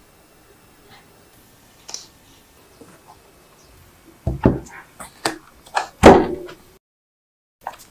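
Ice-pop mold and its plastic lid handled on a countertop: after a few quiet seconds, a quick run of knocks and clatters, the loudest a little after six seconds, then sudden silence.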